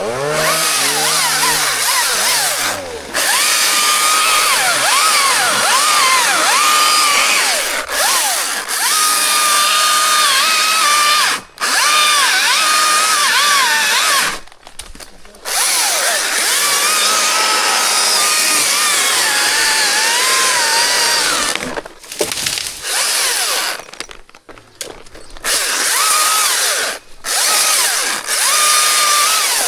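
Chainsaw running at high revs and cutting wood, its pitch wavering as the load changes, dropping out briefly several times as the throttle is let off between cuts.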